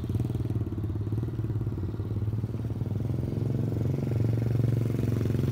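The Apollo X16 125cc four-stroke single-cylinder pit dirt bike engine running steadily as the bike is ridden. It grows louder about four seconds in as the bike comes back toward the listener.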